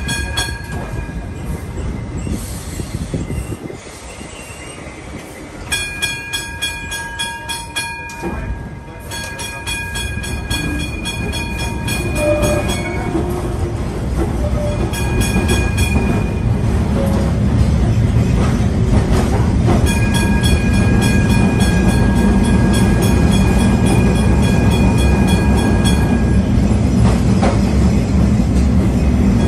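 Kolkata tram running, heard from inside the passenger car: a rumble of wheels and running gear that grows louder through the second half. High steady whining tones with a fast, even flutter come and go over it.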